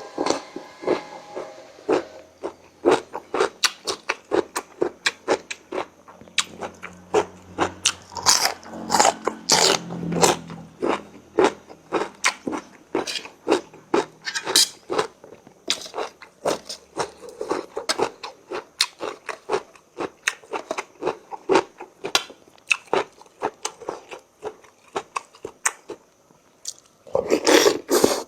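Close-miked eating: a person chewing and crunching food, with short, irregular mouth clicks one or two a second and a louder burst near the end.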